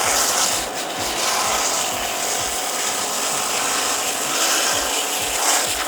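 Jet from a Varsha 180 Deluxe 120-bar electric pressure washer blasting into a 7-ply corrugated cardboard box and cutting through it: a loud, steady hissing spray with a low pulse repeating two to three times a second underneath.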